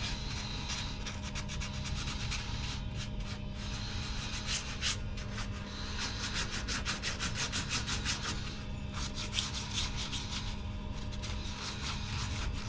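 Hand sanding of cured epoxy fairing compound (TotalFair) on a sailboat keel with a sanding disc held in the hand, in rapid uneven scratchy strokes.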